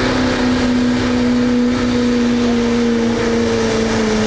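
Pulling truck's engine running at high revs, with one steady pitch that sags slowly.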